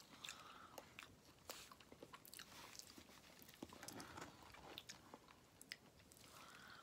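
Faint chewing of fried chicken, close to the microphone: irregular small clicks and crunches of biting and mouth sounds.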